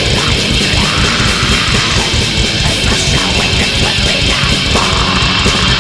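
Black metal band playing: heavily distorted electric guitars over fast, dense drumming, without a break.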